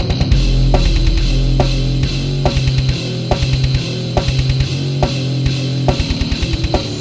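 Slamming brutal death metal played instrumentally: a down-tuned guitar chugging a slow riff over rapid bursts of double kick drum, with a sharp snare hit roughly once a second.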